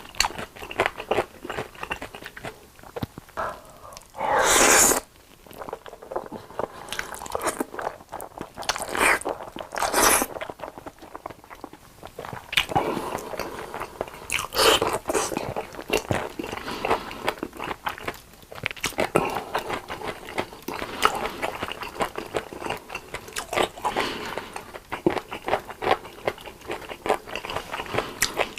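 Close-miked eating: a person biting and chewing crunchy food in quick irregular crunches, with a few louder noisy bursts, the longest about five seconds in.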